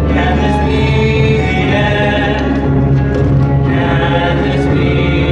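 A youth choir singing in held notes, accompanied by a string orchestra.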